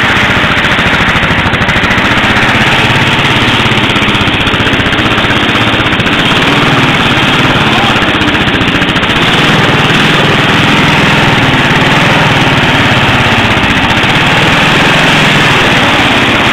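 Racing riding lawn mower's engine running loud and steady, close by.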